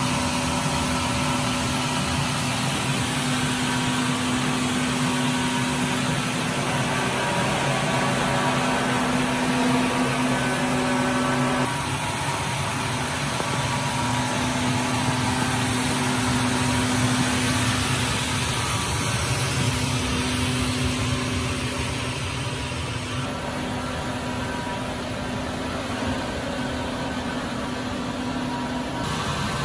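Battery-powered Tennant T600 walk-behind floor scrubber running as it scrubs a running track: a steady motor hum with a held low tone, its mix changing abruptly a few times.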